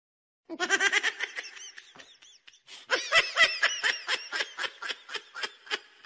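A baby laughing in a string of short, high-pitched bursts that start about half a second in and come several times a second.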